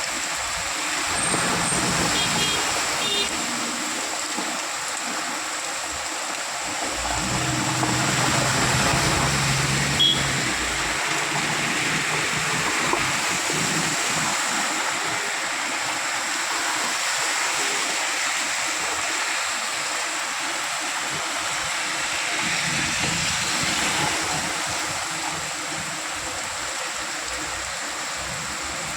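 Heavy rain pouring steadily, a dense even hiss of water. A low rumble swells for a few seconds about seven seconds in, with a single sharp click near its end.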